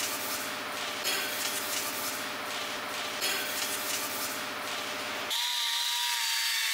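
Rough rubbing tool noise, then about five seconds in an abrupt switch to the steady whine of a pneumatic die grinder with an abrasive pad, lightly cleaning a hydraulic cylinder piston.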